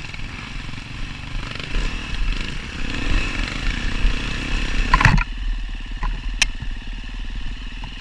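Onboard sound of a dirt bike's engine running on a rough trail, with the clatter of the bike over the ground. About five seconds in, a loud knock is followed by an abrupt change to a steadier, lower engine note.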